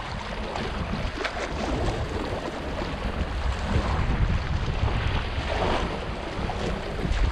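Wind buffeting the microphone with a heavy low rumble, over small sea waves lapping and splashing against shoreline rocks.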